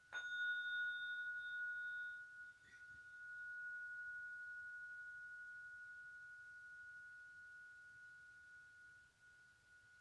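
A tuning fork struck once and ringing in a single high, pure, steady tone that fades slowly. The tone dips briefly and swells again about two and a half seconds in.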